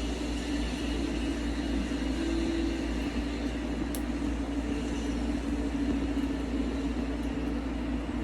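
Steady low hum of background room noise, with one faint click about four seconds in.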